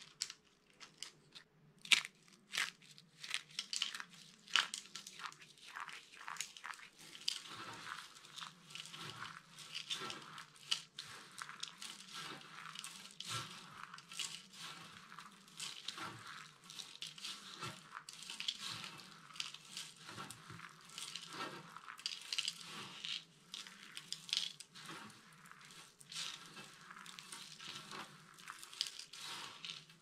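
Hands crushing and rubbing a heap of dry, brittle soap chips. There are crisp, separate snaps for the first several seconds, then dense, continuous crunching and crackling as the chips are pressed and ground together.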